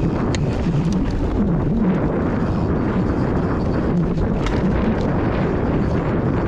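Mountain bike descending a packed-dirt trail at speed: a steady low rush of wind on the microphone and knobby tyres rolling over dirt, with a few sharp clicks and rattles from the bike over bumps.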